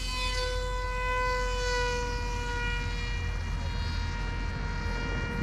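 Electric motor and propeller of a radio-controlled model airplane whining at high throttle: a steady high-pitched whine that sags slightly in pitch.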